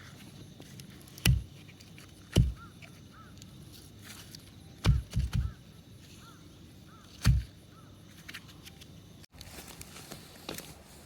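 Dull wooden knocks from sugi cedar logs being handled after chainsaw cutting: single knocks about a second in, two seconds in and seven seconds in, and a quick run of three about five seconds in.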